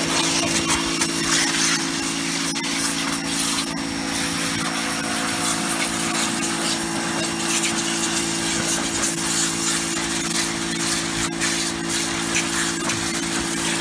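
Titan electric pressure washer running steadily under load, a constant motor-and-pump hum with the hiss of its water jet spraying against a plastic sun lounger.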